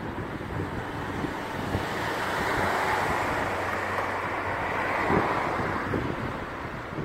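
A car passing on a wet road, its tyre hiss swelling and then fading, over gusty gale-force wind buffeting the microphone.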